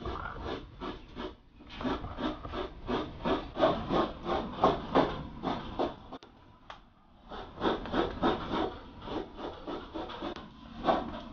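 Rhythmic hand scraping or rasping, about four quick strokes a second, with a short break about six seconds in before the strokes resume.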